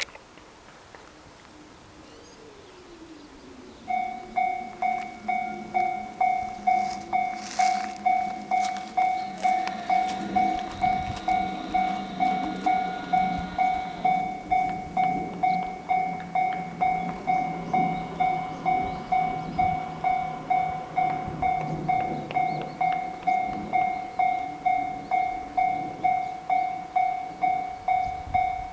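Japanese railway level-crossing warning bell starts about four seconds in and rings on steadily, a repeating high 'kan-kan' tone at about two strikes a second. A low rumble runs underneath for much of it.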